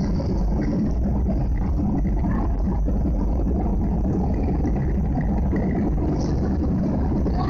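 Steady roar of jet engines and rushing air heard inside an airliner cabin, even and unbroken.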